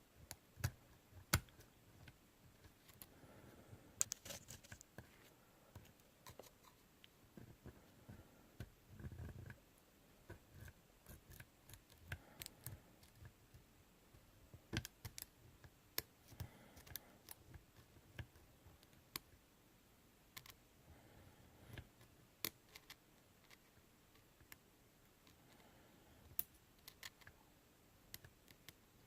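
Faint, irregular metallic clicks and light scraping of a lock pick and tension tool working inside a Mindy pagoda-style padlock core, probing for the binding slider.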